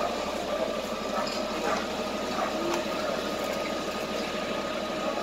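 A fire engine's engine running steadily at idle.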